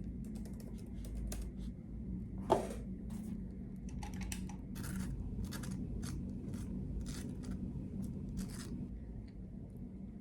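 A run of short, irregular scratchy snips or rustles from handling things at a desk, over a low room hum, with one sharp click about two and a half seconds in.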